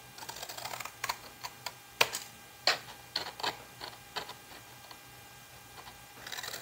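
Scissors cutting through cardstock: a string of sharp snips, the loudest about two seconds in, with the card rustling as it is handled at the start and again near the end.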